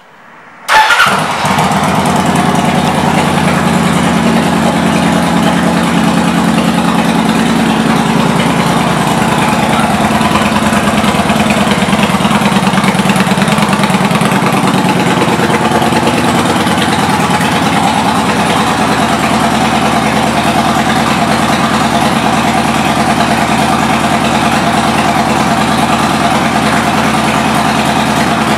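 A 2006 Kawasaki Vulcan 900's V-twin engine with an aftermarket exhaust starting up a little under a second in, catching with a brief loud burst, then idling steadily.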